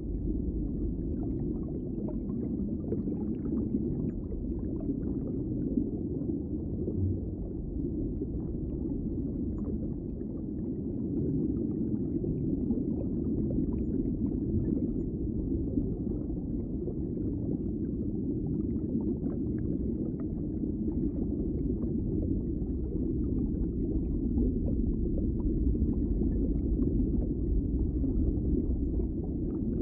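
Underwater ambience: a steady, muffled low rumble of water with faint scattered clicks and bubbling.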